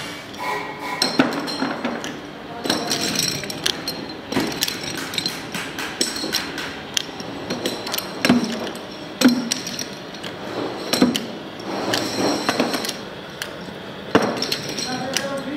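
Irregular sharp metal knocks and clinks, some ringing briefly, from steel-backed motorcycle brake shoes being set on a machine's steel post and clamped down with a bolt and wrench.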